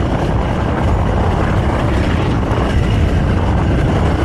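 Honda CRF300L's single-cylinder engine running steadily as the bike rides along, with a constant rushing noise over it.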